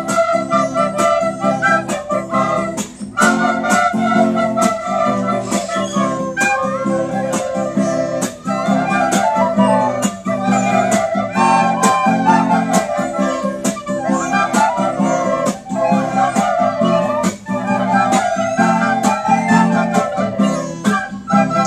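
Soprano recorders played together in unison, carrying a melody. Under them runs an accompaniment with lower notes and a steady beat of about two a second.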